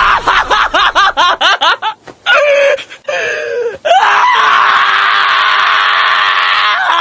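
A person laughing hard in quick bursts, then, about four seconds in, one long, loud scream held at a steady pitch.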